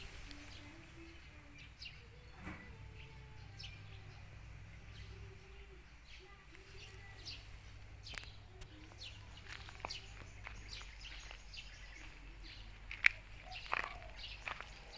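Small birds chirping on and off in the background over a faint low hum, with one sharp click about thirteen seconds in.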